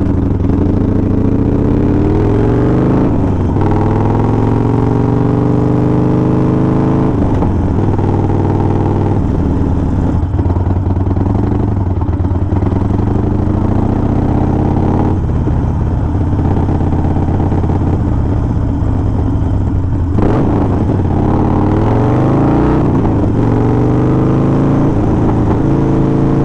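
Harley-Davidson Sportster's air-cooled V-twin engine under way: its pitch climbs as the bike accelerates and drops back at each gear change, several times over, with a steadier cruising stretch in the middle.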